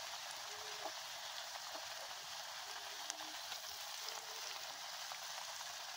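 Hot oil sizzling steadily in a kadai as lumps of dough deep-fry.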